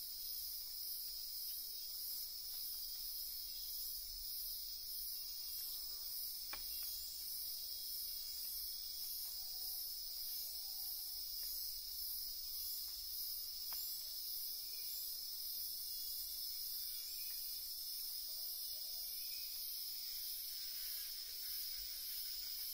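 Chorus of insects: a steady high-pitched trill with a faster, finely pulsing shrill above it, unbroken throughout.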